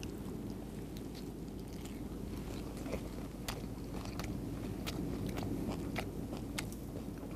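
A person biting into and chewing a lettuce wrap (ssam), with many short crisp crunches and mouth clicks over a steady low background.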